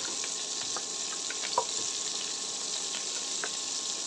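Small prawns sizzling steadily in hot oil in a pan, with a few light clicks of a spoon against the pan as they are lifted out. The loudest click comes about one and a half seconds in.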